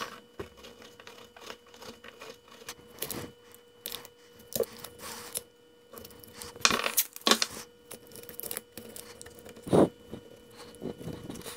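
Blue painter's tape being pulled off the roll, torn and pressed around a small wooden popping cork body, with scattered taps, clicks and rustles of handling on the workbench. A faint steady hum runs underneath.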